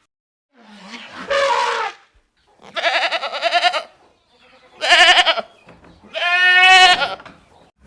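Four separate animal calls, each half a second to a second and a half long, with short silences between them, several of them quavering rapidly in pitch.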